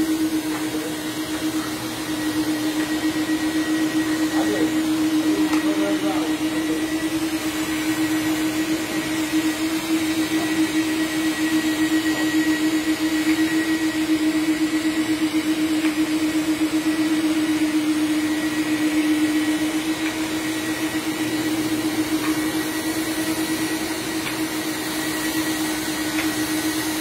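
Commercial drum vacuum cleaner running steadily on carpet, a constant motor hum with a faint high whine above it.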